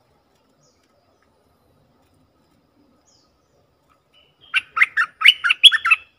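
A bulbul singing one quick phrase of about seven short notes, which starts about four and a half seconds in after a quiet stretch.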